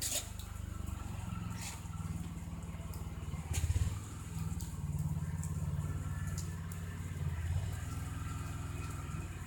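Snowblower engine running steadily, with a brief swell in level about four seconds in.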